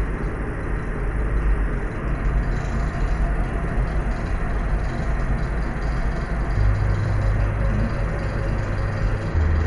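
Synthetic layered purple noise: a steady, even hiss and rumble, heaviest in the low end. A low hum underneath steps to a new pitch a few times.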